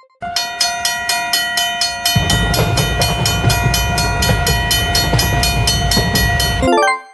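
Railroad crossing warning bells clanging in a fast, even rhythm over a steady held tone. About two seconds in they are joined by the low rumble of a passing train, and all of it cuts off suddenly near the end.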